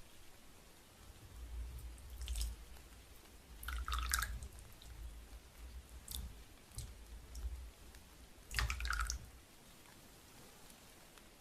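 Teaware being handled with water while the gaiwan and cups are warmed: a few short, light clinks and drips of water, over soft knocks of handling.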